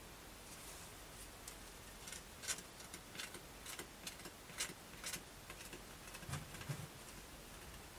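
Faint, irregular clicks and light scrapes of a thin wooden board being handled, with a couple of soft low knocks near the end.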